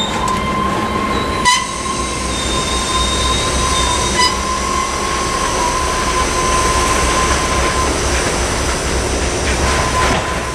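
Loaded tank cars of a freight train rolling slowly over the crossing, their wheels squealing steadily for most of the time. Two sharp metallic clanks come about a second and a half in and about four seconds in.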